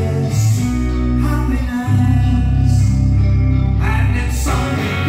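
Live rock band playing: electric guitars over a bass line, with a man singing.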